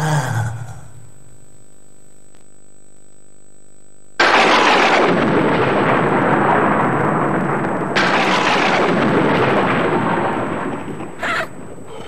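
Two thunderclap sound effects, one about four seconds in and the second about eight seconds in, each a sudden crash that rolls into a long rumble, the second fading away. Before them come the last notes of a closing jingle and a few seconds of faint hum.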